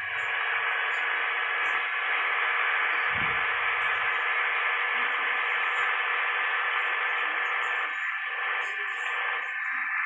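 Steady static-like hiss with no bass, like a radio or heavily filtered recording, with a short low thump about three seconds in.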